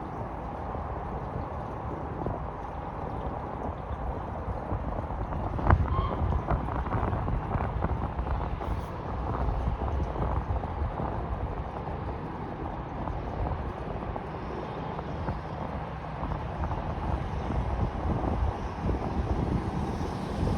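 LNER B1 steam locomotive working hard, its exhaust a steady rushing rumble, with wind buffeting the microphone. A single sharp knock comes about six seconds in.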